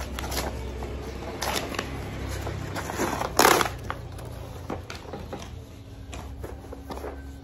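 Brown cardboard parcel being torn open by hand: crinkling and ripping of cardboard and paper wrapping, in a string of short rips with one loud tear about three and a half seconds in.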